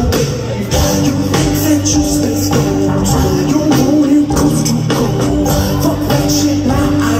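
A live band playing a song loud through a concert PA: a drum beat under a held keyboard note, heard from the crowd.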